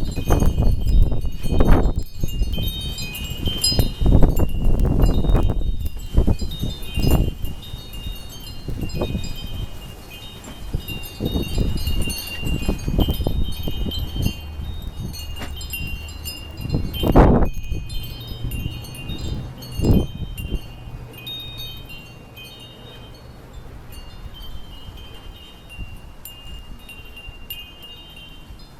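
Wind chimes ringing continuously as a windstorm swings them, with gusts buffeting the microphone; the gusts are strongest in the first several seconds and once more briefly past the middle, then ease.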